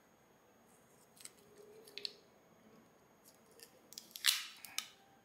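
Thin plastic wrap being peeled off an 18650 battery: soft crinkling and scattered crackles, with one louder, longer crackle about four seconds in.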